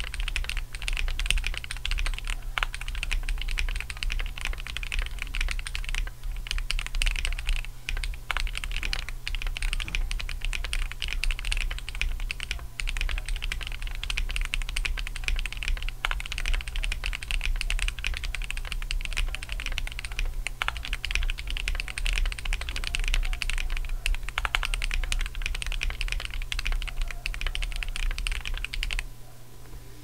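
Fast, continuous typing at about 108 words per minute on a Glorious GMMK Pro mechanical keyboard with a polycarbonate plate, no foam, no standoffs and lubed Holy Panda tactile switches: a dense, clacky run of keystrokes. It stops shortly before the end.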